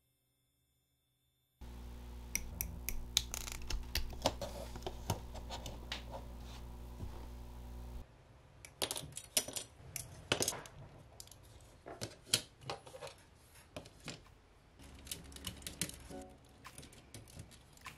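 Sharp irregular plastic clicks and snaps from an HG Xi Gundam model kit: nippers cutting parts off the sprue and pieces being pressed together. It starts after a second and a half of silence, with a steady low hum under the clicks for the first several seconds.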